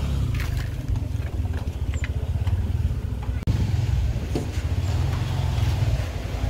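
Pickup truck running, a steady low engine rumble heard from its open cargo bed, with scattered clicks and knocks and a brief drop-out about halfway through.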